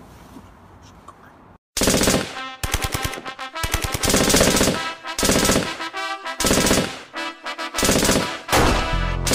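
Music with horn-like tones, mixed with rapid machine-gun fire in several short runs, cutting in abruptly about two seconds in.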